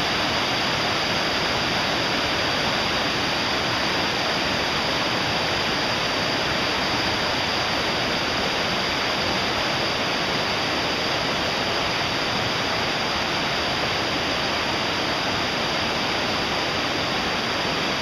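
Fast, shallow mountain river rushing over rocks and small rapids: a steady, even rush of water.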